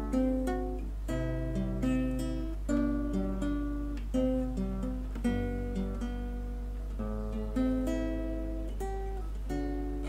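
Background music: an acoustic guitar picks out slow single notes and chords, one every half second or so, over a steady low drone.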